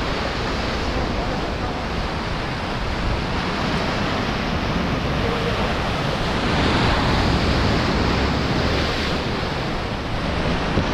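Sea surf breaking and washing against the rocks at the foot of a seawall: a steady rushing that swells a little past the middle, with wind on the microphone.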